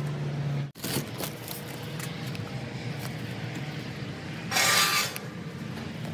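Steady low hum of traffic, cutting out for an instant just under a second in, followed by a few light clicks. A short, loud scraping rustle comes near the end.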